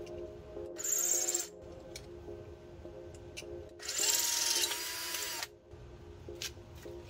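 Power drill run in two short bursts, about a second in and again about four seconds in, the second one longer, its motor pitch rising as it spins up: drilling out holes in 80/20 aluminium extrusion to widen them for M5 bolts.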